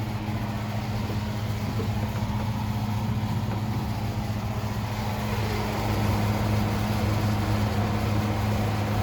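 Thermostat-controlled attic exhaust fan running at full effort: a steady low motor hum with a rush of moving air, growing a little louder about six seconds in.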